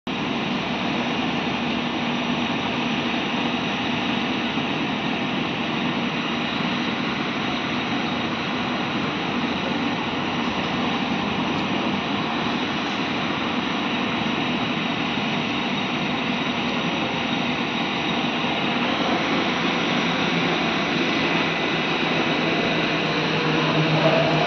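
Steady hiss of heavy rain falling, with a low engine hum underneath.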